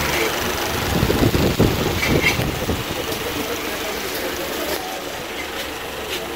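Busy market background noise with traffic running in the distance, and a cluster of knocks and clatter between about one and two and a half seconds in.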